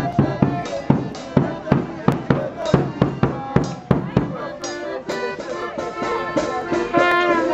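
Bass drum beaten in a steady street-band beat, about three strokes a second, with other instruments playing a tune over it.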